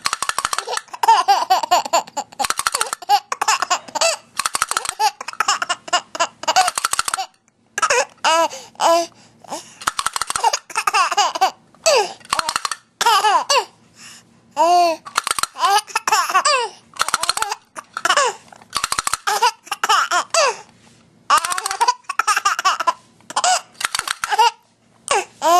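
A baby laughing hard in repeated runs of short, pitched bursts with brief pauses, his laughter broken by hiccups.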